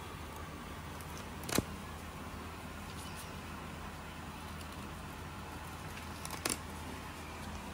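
Filleting knife working through a large fish, with soft scrapes and two sharp clicks, about a second and a half in and again near the end, over a steady low background hum.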